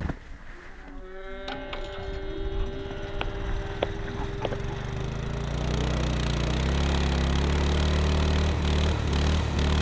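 A low, steady engine-like drone that swells in about halfway through and then holds, after a higher sustained tone with a few sharp clicks.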